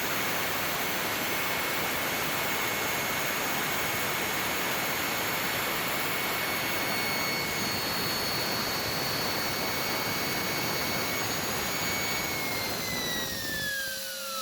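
Turbocharger cartridge (bearing housing and rotor) from a Volkswagen B6 spinning at high speed on a test stand during an oil-leak check: a steady high whine over a loud rush. Near the end the whine glides down in pitch as the rotor spins down.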